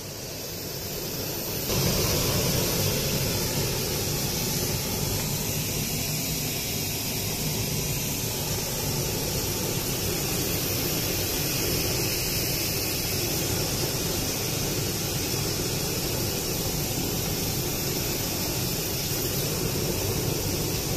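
Compressed air blasting steadily from a handheld air blow gun fed by an oil-free air compressor, starting abruptly about two seconds in.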